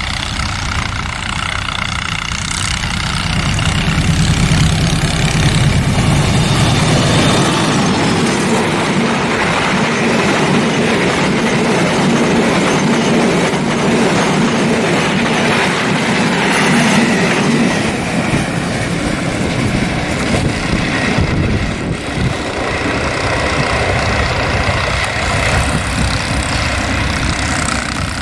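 A diesel-hauled passenger train passing at speed. The locomotive's engine drone builds over the first few seconds and is loudest about four to eight seconds in, then the coaches' wheels run noisily over the rails, easing off somewhat near the end.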